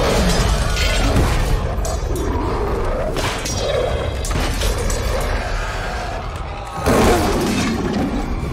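Film battle soundtrack: music under a dense mix of crashes, booms and thuds, with a sudden loud hit about seven seconds in.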